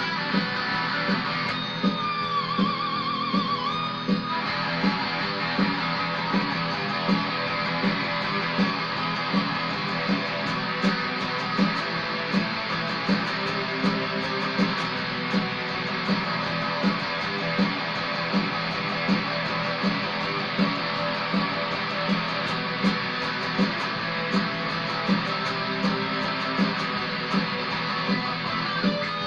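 Squier Stagemaster electric guitar playing in E over a steady beat that pulses about every seven-tenths of a second, with a warbling held note about two seconds in.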